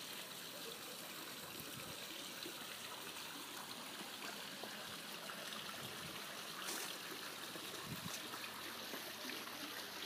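Faint, steady hiss of outdoor background noise with no distinct event, only a faint tick or two.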